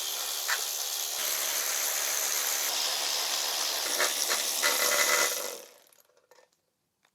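Steady hiss of gas escaping under pressure for about six seconds, with a few faint knocks, fading out near the end.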